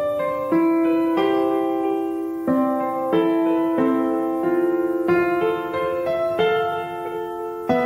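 Background music: a slow melody on electric piano, with a new sustained note or chord every half second to a second.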